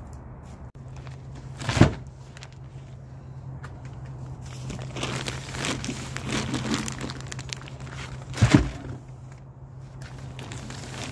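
Heavy plastic bags of lawn soil being handled and loaded into an SUV's cargo area: crinkling of the plastic bags, and two heavy thumps as bags are dropped, about two seconds in and again about eight seconds in. A steady low hum runs underneath.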